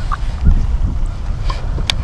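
Wind buffeting the microphone, a loud low rumble, with a few light clicks and one sharp click near the end.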